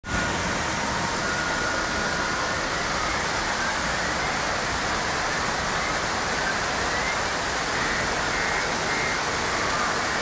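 Rain falling steadily outside, heard as a dense, even hiss with no change in level.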